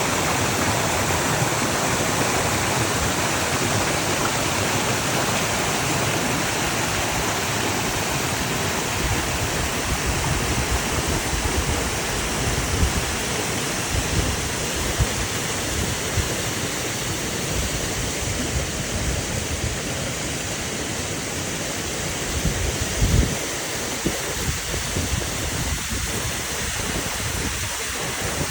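River and waterfall water flowing in a steady, even rush, with a few irregular low bumps in the second half.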